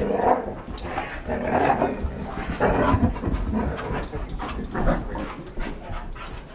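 Standard poodles play-fighting, with repeated rough play growls and panting that come in irregular bursts.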